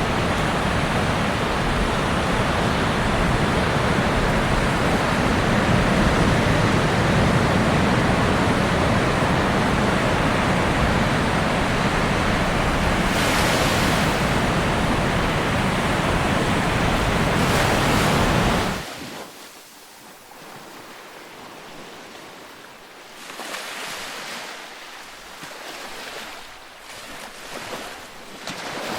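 Ocean waves on a beach: a loud, steady wash of surf that cuts off suddenly about two-thirds of the way through, followed by quieter, gentler waves washing in every few seconds.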